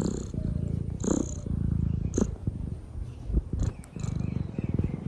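Domestic cat purring close up, a low, finely pulsing purr in stretches with short breaks, with brief louder sounds about one and two seconds in.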